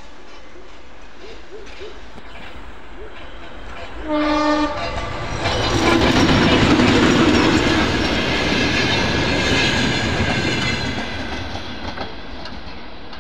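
ChME3 diesel shunting locomotive gives a short horn blast about four seconds in, then passes close by with its diesel engine running and its wheels clattering on the rails. It is loudest about six to seven seconds in, then fades as the wagons roll away.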